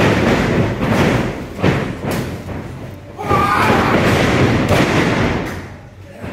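Wrestlers' bodies hitting the canvas of a wrestling ring, several loud thuds through the boards, with a brief shout a little past three seconds in.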